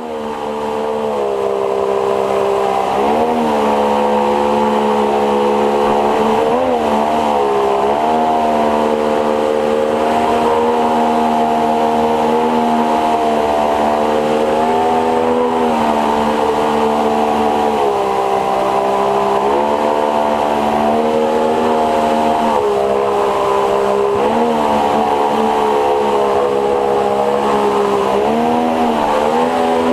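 A 50 hp two-stroke outboard with a water-jet unit, running hard close by as it drives an inflatable boat up a shallow river. Its pitch dips and climbs back several times, around 3, 7, 8, 16, 20, 23, 25 and 29 seconds in.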